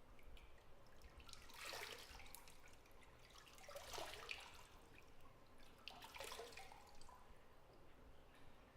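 Faint bathwater sounds: three short bursts of splashing and trickling about two seconds apart, with scattered drips.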